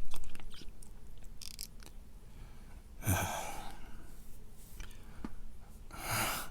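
A man's heavy, sighing breaths: one long breath about three seconds in and another near the end.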